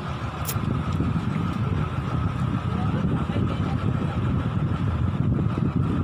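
Tractor engine running steadily as it slowly tows a speedboat on its trailer, a continuous low rumble with a faint steady whine above it.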